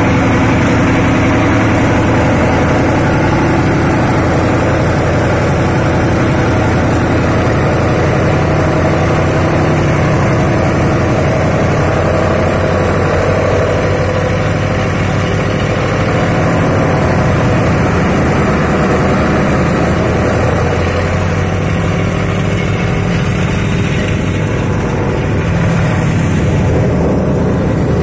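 Engine-driven paddy straw chopper running steadily under load as straw is fed in, its engine and cutter-blower making a loud, continuous noise.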